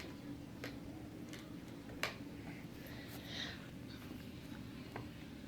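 A few light, scattered taps and clicks, the sharpest about two seconds in, over a faint steady hum in a quiet room.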